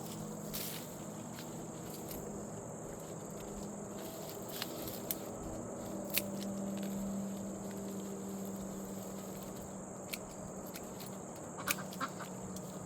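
Steady high-pitched insect trilling, likely crickets, over a low steady hum, with scattered clicks and rustles from handling soil and the grow bag; the clicks come in a cluster near the end.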